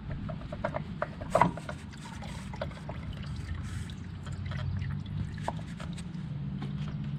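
Hot engine oil trickling and dribbling out as the spin-on oil filter comes off, with small clicks and knocks of handling and a louder click about a second and a half in. A low steady hum runs underneath.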